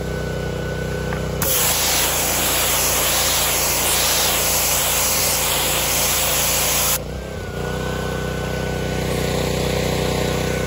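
Pressure washer running steadily. About one and a half seconds in, its wand sprays a loud, even hiss of water onto the camper's rubber roof, rinsing off the cleaner/activator. The spray cuts off abruptly about seven seconds in, while the machine keeps running.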